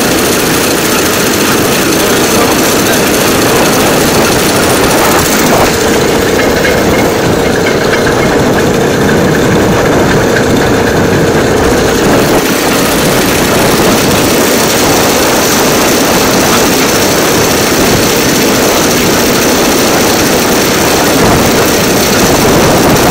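Engine of a DL2 light motor draisine running steadily as the trolley travels along the rails, a loud continuous drone.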